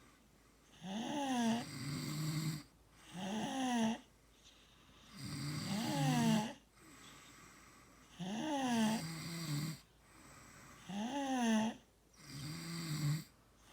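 Rhythmic snoring, with a snore about every two to three seconds. Each snore is a buzzing, wavering tone, sometimes followed by a lower, steadier one.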